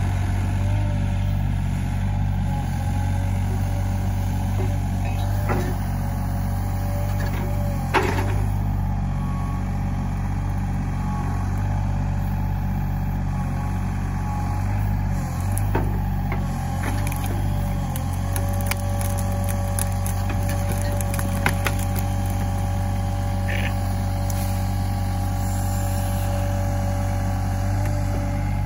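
Sany SY35U mini excavator's diesel engine running steadily under hydraulic load, with a steady higher tone over the engine note, as the bucket tears an overgrown pine shrub out by the roots. A sharp knock comes about eight seconds in, and a run of snaps and cracks comes later.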